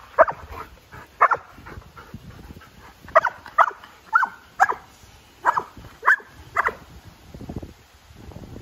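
Labrador retriever barking excitedly in short, sharp barks, about nine in all, some in quick pairs, while waiting for a ball to be thrown.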